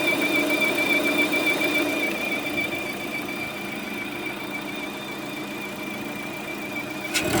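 Lada Priora engine idling with a steady, high-pitched whistle that wavers slightly. The whistle is still there with the alternator belt removed and the timing belt and rollers new. A sharp click comes near the end.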